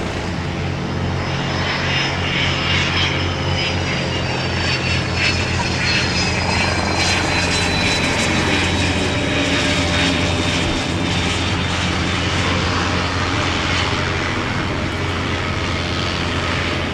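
The turbofan engines of a Cessna Citation II/SP business jet run steadily, with a high whine that slowly falls in pitch over a low, steady drone.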